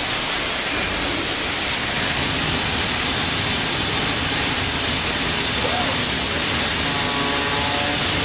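CNC sheet cutter running as it cuts a plastic plate: a steady rushing noise, joined about seven seconds in by several steady tones.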